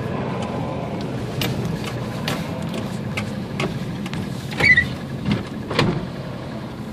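Subaru Impreza coupe driving on a wet road, heard from inside the cabin: steady low engine and tyre noise with scattered light clicks. A little after halfway come three louder thumps, the first with a short squeak.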